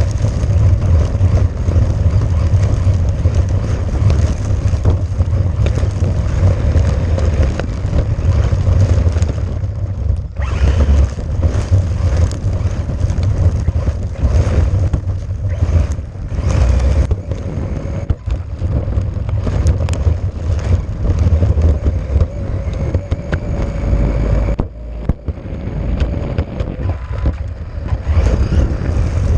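BSD Racing Blazer XB 1:8 RC buggy driving, heard from a camera mounted on it: a loud, continuous rumble with a faint wavering tone above it. The rumble drops out briefly twice, once about ten seconds in and once near twenty-five seconds.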